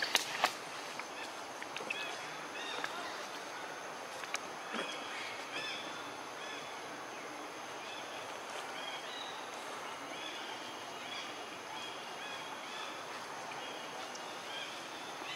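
Outdoor forest ambience: a steady hiss with many short, high chirping calls repeating throughout, and a few sharp clicks in the first seconds and again about four and a half seconds in.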